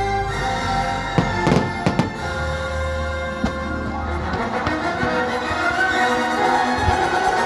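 Orchestral fireworks-show soundtrack playing, with a handful of sharp firework bangs about a second to two seconds in and another a little later.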